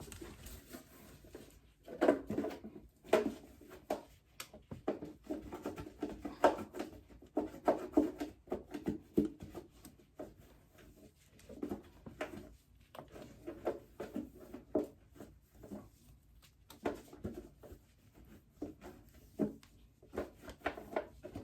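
Irregular handling noise from cleaning out a mini fridge: clusters of short knocks, clatter and rubbing, pausing briefly twice.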